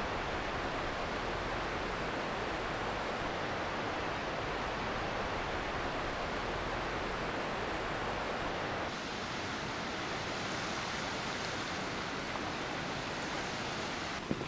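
Steady rushing of flowing water, a little quieter and duller from about nine seconds in.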